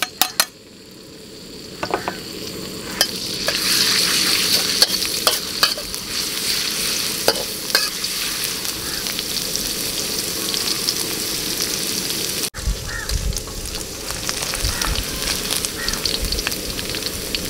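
Chopped garlic and shallots sizzling in hot oil in a wok, the sizzle building over the first few seconds. Scattered clicks and scrapes of a utensil against the wok come as they are stirred.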